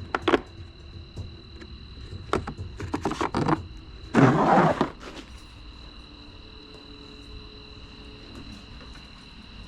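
Clicks and clinks of hand tools and sockets being handled, with one louder rattling scrape, under a second long, about four seconds in. A faint steady high whine runs underneath.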